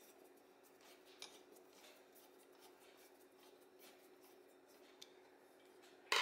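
Faint scattered clicks and small metal taps of hand work on an Autolite 2100 carburetor, its air horn screws being handled and driven, over a steady low hum. Just before the end comes a sudden loud metal clatter.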